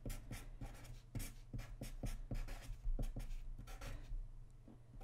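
Sharpie marker writing on paper in quick, short strokes, which stop shortly before the end, over a faint steady low hum.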